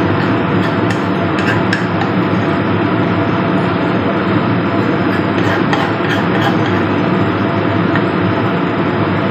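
Steady loud rumbling noise throughout, with a few light clicks of a metal spoon scraping peanut sauce out of a mortar, around a second in and again past the middle.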